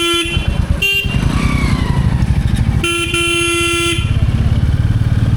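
Royal Enfield Bullet 350's single-cylinder engine running with a steady low, pulsing beat under way in traffic. A vehicle horn sounds at the start, toots briefly about a second in, and blasts for about a second in the middle.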